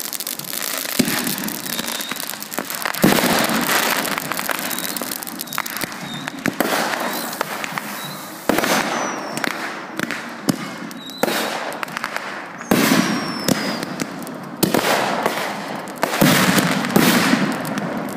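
Aerial fireworks going off in quick succession: repeated sharp bangs of bursting shells with crackling between them, and a couple of short falling whistles near the middle.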